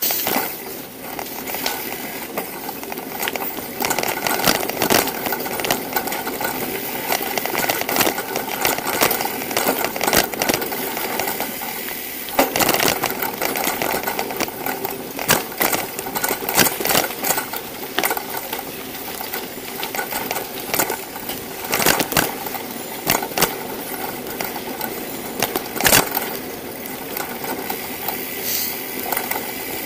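Clatter and rattling of a bicycle being ridden, heard from a camera mounted on the bike: frequent sharp knocks and rattles over a steady rush of road noise.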